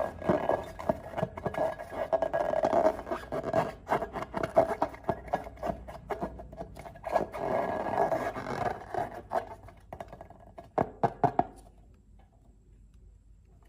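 Hands working slime and balloons, with sticky crackling, clicking and rubbing that falls away near the end.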